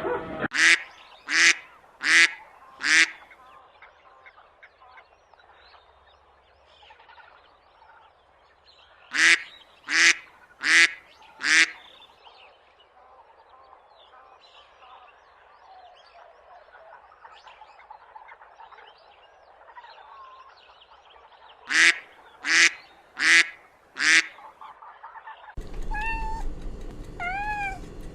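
A duck quacking in three runs of four loud quacks, each run about ten seconds apart, with faint quieter calling between them. Near the end a cat begins meowing.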